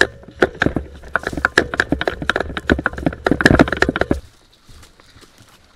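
Quick footsteps crunching through dry fallen leaves, close to the microphone, at a running pace; they stop about four seconds in.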